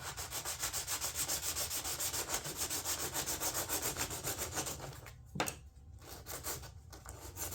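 Sandpaper rubbing on a fiberglass door panel: hand sanding with quick, short back-and-forth strokes under light pressure. The strokes stop about five seconds in, there is a single knock, and then the sanding goes on more faintly.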